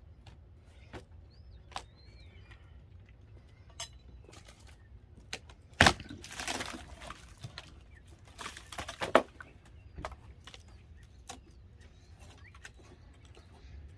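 Demolition of old wall boards: scattered knocks and clatter of wood being pried and handled, with one loud knock about six seconds in followed by scraping, and another run of scraping and knocks near nine seconds.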